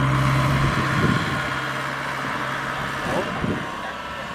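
A farm machine's engine running steadily at idle, its steady hum fading out about three seconds in.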